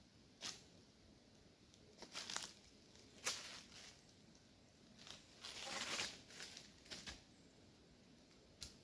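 Irregular rustling and crackling in a series of short bursts, the longest about two-thirds of the way through, over a quiet background.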